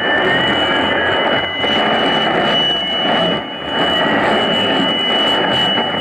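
Tecsun S-2000 shortwave receiver tuned to 4865 kHz, giving out dense static with a steady high whistle near 3 kHz, the heterodyne from the neighbouring station on 4862 kHz. The noise dips briefly twice as the signal fades.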